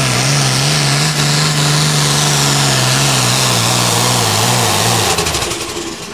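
Turbocharged diesel engine of an International hot farm pulling tractor running flat out under load as it drags the pulling sled, a steady heavy drone. About five seconds in the throttle comes off and the engine falls back to a much quieter, lower run as the pull ends.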